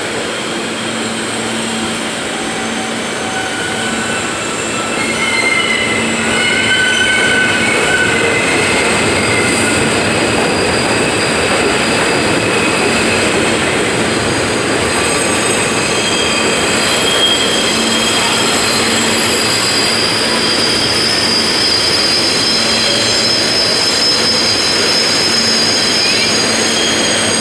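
R160A New York City subway train rolling past along the platform, its wheels squealing in thin high tones over the steady running noise. The sound grows louder about five seconds in.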